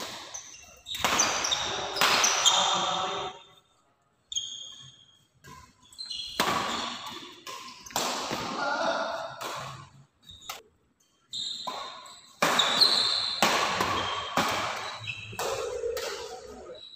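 Doubles badminton being played: repeated sharp racket strikes on the shuttlecock and shoes squeaking on the court floor, in bursts separated by short pauses between rallies.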